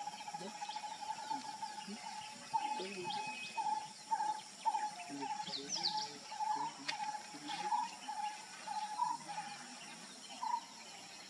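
Birds calling: one bird repeats a short note about twice a second, while others give brief high chirps.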